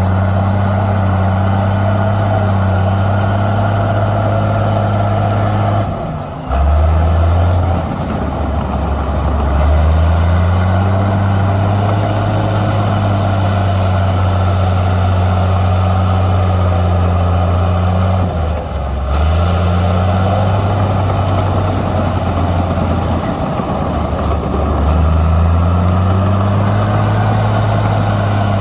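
Heavy diesel engine of earthmoving machinery running hard, its pitch dropping briefly and recovering a few times as the load changes.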